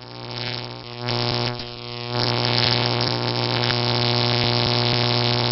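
Concrete-cutting power tool's motor running at a steady pitch, growing louder about a second in and again about two seconds in.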